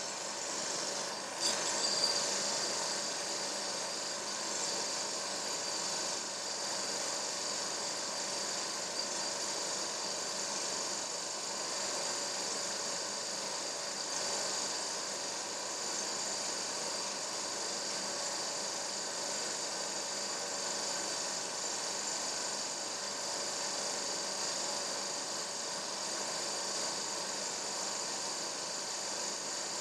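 A steady mechanical hum with hiss, holding several fixed tones, broken once by a brief knock about a second and a half in.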